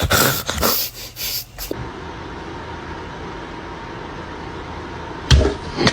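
A cat hissing in several short, sharp bursts during the first couple of seconds. Then a steady background hiss, with a single thump near the end.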